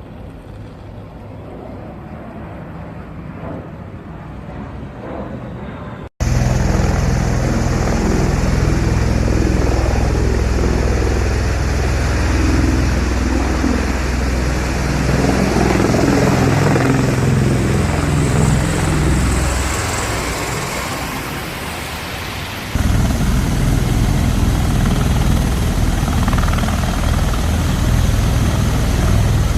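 MV-22 Osprey tiltrotor running close by, a loud steady low rotor and engine noise. It starts abruptly about six seconds in after fainter, rising wind-like noise, fades slightly, then jumps back up near the end.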